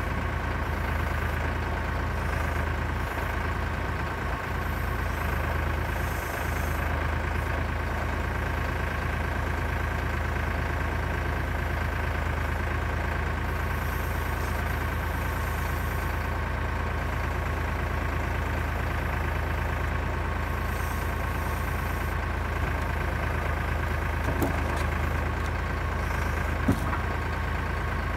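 Kioti tractor's diesel engine running steadily while it drives a hydraulic log-loader crane, with a steady higher whine over the engine note. Two short knocks come near the end.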